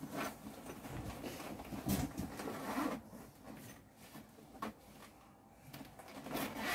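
Zipper of a fabric carry bag being worked open by hand, with scratchy rustling of the bag's fabric and one sharp click about four and a half seconds in.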